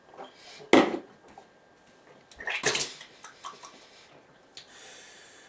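A person spluttering over a bathroom sink after downing a shot of vegetable oil: a sharp thump about a second in, a short noisy splutter a little later, a few light clatters, and a faint hiss like running water near the end.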